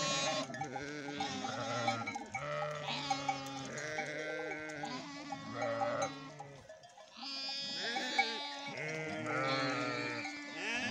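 A flock of sheep and lambs bleating, many high and low calls overlapping, briefly thinning out about seven seconds in.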